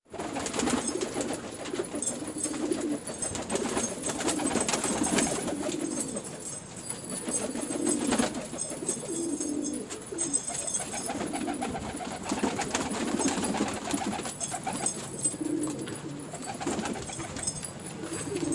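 Domestic pigeons cooing over and over in low, rounded calls, with scattered clicks and rustles.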